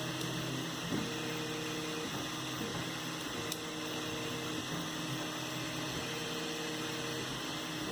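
3D printer printing: its stepper motors give off steady tones that change pitch or stop every second or so as the print head moves, over a constant hum.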